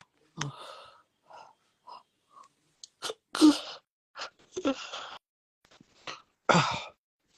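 A man sneezing in a run of short, sharp bursts, the loudest two about three and a half and six and a half seconds in.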